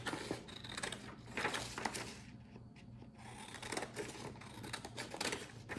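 Hand scissors cutting a sheet of paper: a run of unevenly spaced snips.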